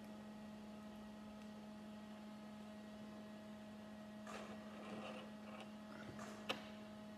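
Steady electrical hum under faint rustling as small plastic Lego minifigure parts are handled and fitted together, with one short sharp click of a part near the end.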